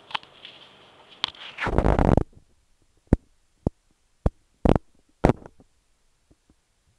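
A short loud rustle, then five sharp clicks and knocks spaced about half a second apart: handling and play noise as a kitten attacks batteries on a bed.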